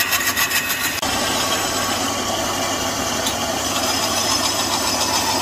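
Belt-driven wood lathe running, its motor humming steadily while a hand-held tool cuts into the spinning wooden blank. A rapid rhythmic scraping of several strokes a second for about the first second gives way to a steady, even cutting noise.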